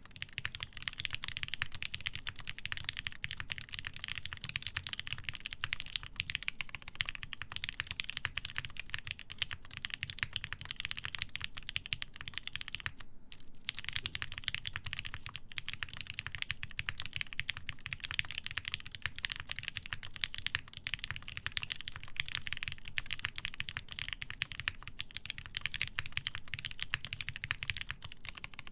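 Steady, continuous typing on a TGR Jane v2 custom mechanical keyboard with lubed Alpaca linear switches, a half-polycarbonate plate and GMK keycaps, the keystrokes coming fast and even. There is a brief pause about halfway through.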